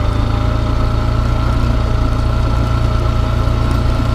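Small motorcycle engine running at a steady, even speed with a constant low hum, picked up by a camera mounted on the bike.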